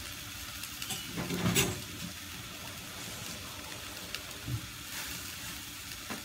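Green beans and carrots sizzling steadily in a stainless steel frying pan, with a brief louder rush of noise about a second and a half in.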